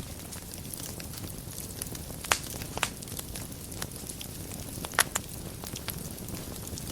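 Wood fire burning in a fireplace: a steady low rumble of flames with scattered sharp crackles and pops, the loudest snaps a little past two seconds in, just before three seconds and at about five seconds.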